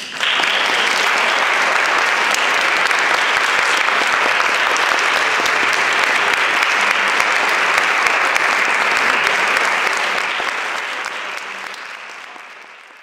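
Audience applauding: clapping that breaks out all at once, holds steady, then dies away over the last few seconds.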